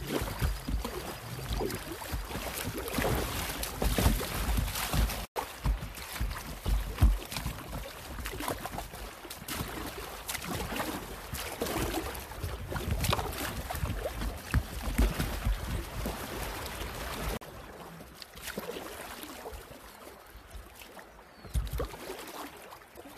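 River water rushing and splashing around an inflatable kayak as it runs shallow riffles, with low buffeting on the microphone. The sound cuts off abruptly about five seconds in and resumes, and it turns quieter and thinner from about seventeen seconds.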